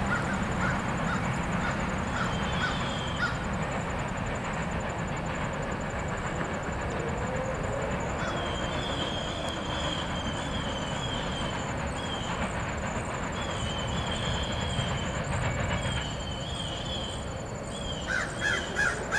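Freight train of covered hopper cars rolling by on the track with a steady rumble and rattle. Near the end a crow caws several times in a row.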